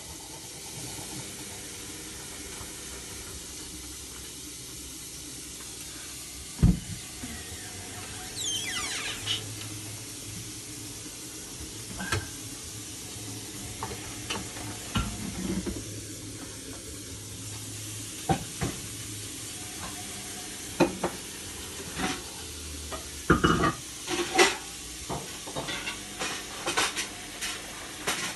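Zanussi Lindo 100 washing machine on a cottons 40 wash. The drum tumbles the load with water sloshing and a steady hiss, while the motor hum comes in and drops out for several seconds at a time. Irregular knocks and clunks are heard as the wet clothes drop, the loudest a sharp knock early on.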